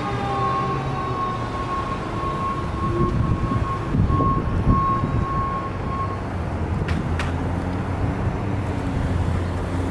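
Fire engine's siren fading as the apparatus drives off, a steady high tone with fainter falling tones that dies away about six seconds in, over the running engines of stopped traffic. A low vehicle engine rumble grows louder near the end.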